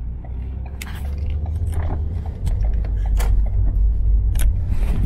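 Handling noise from a phone being moved in the hand: rubbing, knocks and clicks against its microphone, over a low rumble that grows louder about halfway through.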